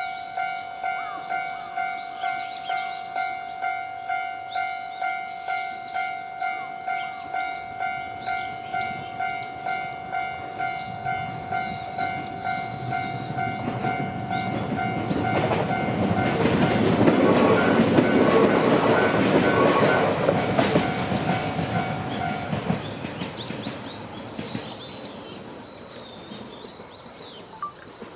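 Japanese level-crossing alarm ringing a steady repeating 'kan-kan' ding, about three strokes every two seconds. Midway a Yoro Railway electric train rolls over the crossing, its wheel and running noise swelling to the loudest part. The alarm stops about three-quarters of the way through as the train moves off.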